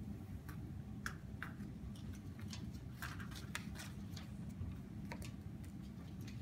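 Scattered small ticks and scratches of pens writing on sticky notes and paper on a conference table, at irregular moments, over a steady low room hum.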